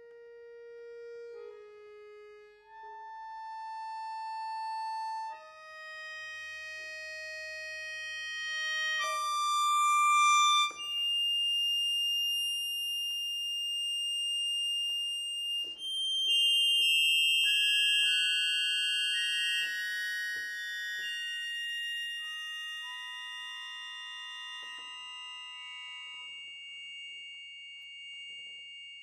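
Solo accordion holding sustained reed tones, notes entering one by one and stacking into chords that swell to their loudest about ten seconds in. A long high note is then held near the top of the range while other held notes come and go around it, with a few faint clicks.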